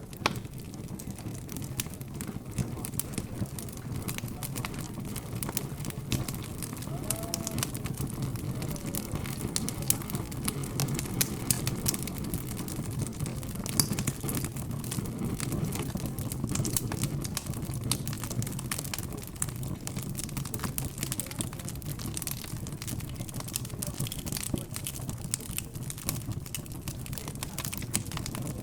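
Wood fire crackling with frequent irregular small pops and snaps, over a steady low murmur of background chatter.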